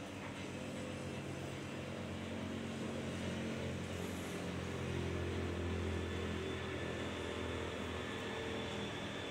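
A low, steady motor-like drone with a hum in it. It grows louder about five seconds in and eases off near the end.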